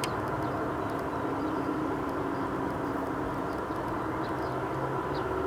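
Low, steady drone of several held tones, with a few faint high chirps above it. It is an unexplained 'strange sound' of the kind reported from Kiev.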